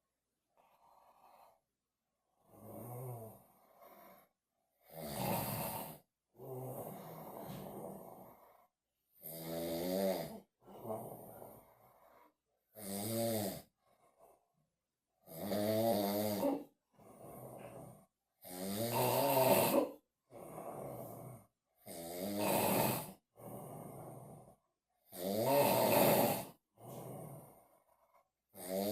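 An elderly man snoring in his sleep, in a steady rhythm of a loud snore about every three seconds, each followed by a quieter breath. The first few snores are softer.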